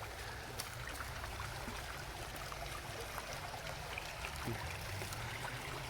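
Creek water running over rocks: a steady rushing and trickling of a small stream, with a low rumble underneath.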